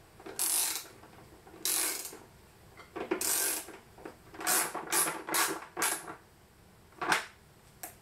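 Socket ratchet clicking in about eight short bursts with pauses between, tightening the nut that holds a heavy cable lug on an inverter's battery terminal stud.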